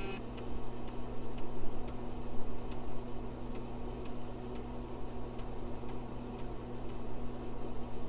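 A 386 PC and its drives running with a steady low hum, with faint regular ticks about once a second while the DOS FORMAT command loads.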